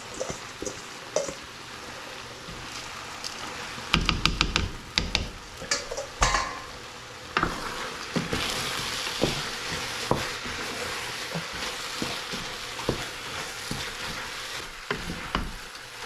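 Food sizzling in a cooking pot while a spoon stirs it, knocking against the metal. A run of clatter comes about four to six seconds in, with a brief metal ring, and after that the sizzle runs louder and steady with occasional knocks.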